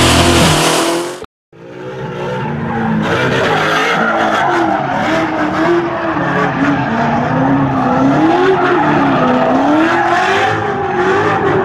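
Muscle car doing a burnout: the engine held at high revs while the spinning tyres squeal in a tone that wavers slowly up and down. It starts after an abrupt cut about a second in, from another loud sound.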